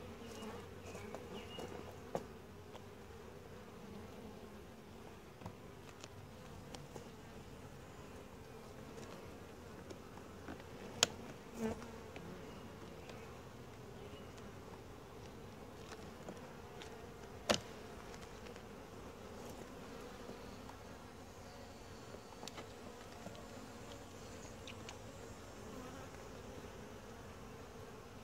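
Honey bees humming steadily around an open hive: the even hum of a calm colony. A few sharp clicks of the hive tool and wooden frames cut through it, the loudest about eleven and seventeen seconds in.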